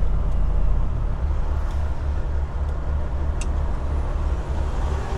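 Semi truck's diesel engine and road noise heard inside the cab while driving: a low, steady drone, with a sharp click about three and a half seconds in.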